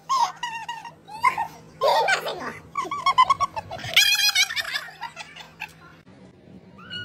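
Dog making high-pitched whining, yowling vocal sounds in a run of short bursts through the first few seconds, dying away near the end.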